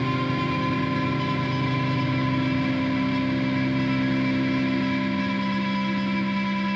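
Electric guitar played through an amplifier: one chord held and left to ring as a steady drone of several notes, without new strikes.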